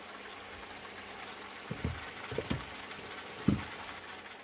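Bok choy in oyster sauce sizzling and simmering in a frying pan: a steady hiss, with a few dull low thumps or pops between about two and three and a half seconds in.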